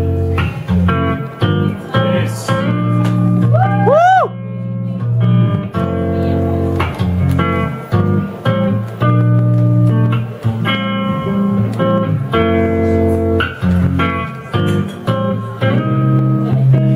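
Guitar played lap-style, laid flat across the knees: plucked notes ring out in a slow melody over a sustained low bass. About four seconds in comes a quick bend up and back down in pitch.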